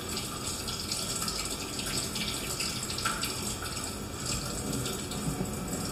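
Tap water running steadily over hands at a sink as they are rinsed after scrubbing, played back through a laptop's speakers.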